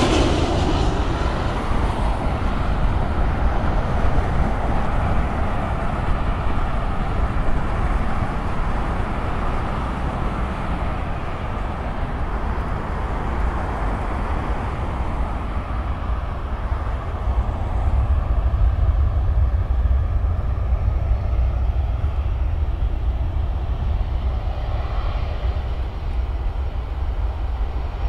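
Boeing 737-800 airliner passing low overhead on landing approach, its jet engine noise falling in pitch and fading over the first couple of seconds. After that comes a steady low rumble of distant airliner jet engines.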